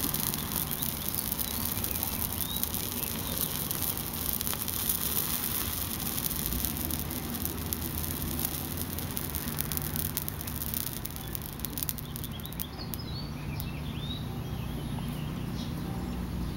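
Small potassium permanganate and glycerin fire burning under a clear plastic bowl, crackling faintly in fine rapid ticks that thin out after about twelve seconds as the flame dies down, over a steady background hiss. Short high chirps come in near the end.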